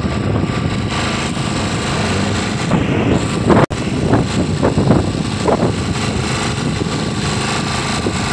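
Fishing boat's engine running steadily. A few short, louder knocks come near the middle, and the sound cuts out for an instant.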